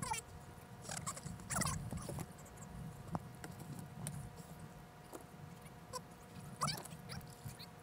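Plastic kayak and paddle scraping and knocking against a fallen log and the shallow bottom as the boat is worked underneath, with scattered clicks and a few short sliding squeaks over a low rumble of water and handling.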